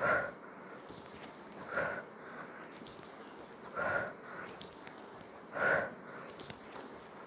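A woman's short, sharp breaths during sit-ups, one with each rep, four of them about two seconds apart.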